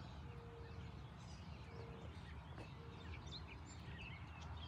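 Quiet outdoor background noise with faint, scattered high bird chirps.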